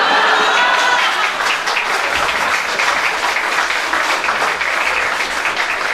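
Live audience applauding after a punchline, with some laughter mixed in at the start.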